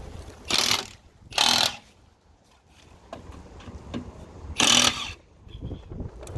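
Milwaukee cordless impact driver firing in three short bursts of about half a second each, turning counterclockwise to loosen a car's 21 mm wheel nuts.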